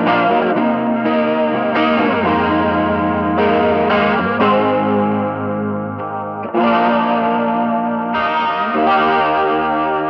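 Electric guitar (a PRS Hollowbody II) played through a Walrus Audio Julia chorus, an Ibanez Tube Screamer overdrive and a little delay, into a Benson Nathaniel Jr. amp. It plays sustained, lightly overdriven chords with a wide, washy 80s-style chorus. A fresh chord is struck every second or two, and the last one rings out near the end.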